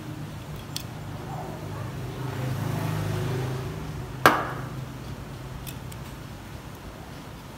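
Plastic and metal parts of a disassembled Nokia 1280 phone being handled on a rubber work mat. A few light ticks and one sharp knock about four seconds in sound over a steady low hum that swells briefly in the middle.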